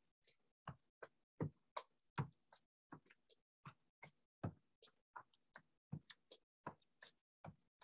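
Faint footfalls of sneakers on a hard floor as a person steps in place during an aerobics routine, about two soft thumps a second with lighter ticks between.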